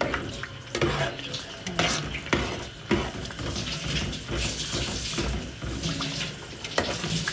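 A metal spoon stirring a thick rice-and-milk mixture in an aluminium pot, with repeated scrapes and knocks against the pot's sides and bottom at an uneven pace.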